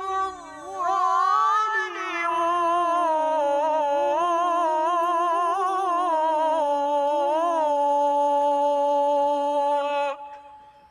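A young male reciter chants the Quran in the melodic tilawah style, holding one long phrase on a single breath with wavering, trilled ornaments. The phrase ends on a long steady note that stops about ten seconds in, leaving a brief echo.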